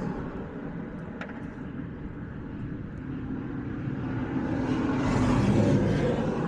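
An engine passing by, growing louder to a peak about five seconds in and then fading slightly.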